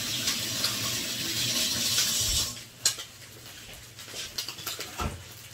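Kitchen sounds: a steady hiss lasting about two and a half seconds that stops abruptly, then a sharp clink and light clatter of kitchenware.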